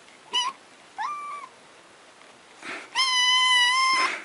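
Kitten meowing three times: a short meow, a rising one about a second in, then a long, loud, steady meow near the end.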